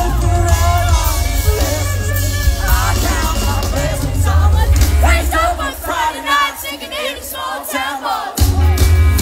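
Live band playing loud through a concert PA: male lead vocal singing over electric guitar, bass and drums. About five and a half seconds in the bass and drums drop away under the voice, and the full band comes back in near the end.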